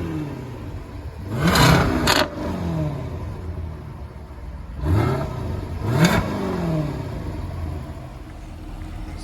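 Jaguar F-Type's 5.0-litre supercharged V8 exhaust revving up and falling back to idle: one throttle blip about a second and a half in, then two more in quick succession around five and six seconds in. A steady low idle rumble runs between them.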